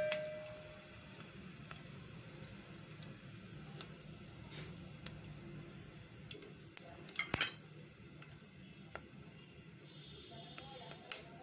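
Cumin, mustard and fennel seeds in hot oil in a steel pot, sizzling faintly with scattered sharp pops and crackles, the loudest about two-thirds of the way through, over a low steady hum. A brief metallic ring at the very start.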